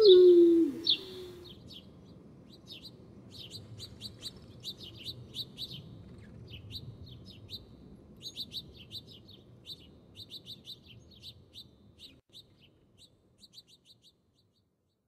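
Wolves howling, their long falling howls ending about a second in, followed by small birds chirping in quick runs of short, high notes that fade out near the end.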